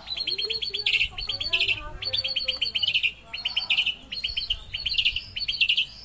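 White-rumped shama singing continuously in several phrases of fast, sharp repeated high notes, about eight to ten a second, with short pauses between phrases. Softer lower warbling notes sound beneath.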